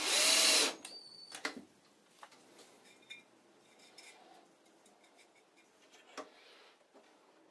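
Cordless drill driving a screw into a plastic lamp-holder plate in a short, loud burst at the start, then light clicks and taps as the globe lampshade is handled and set on.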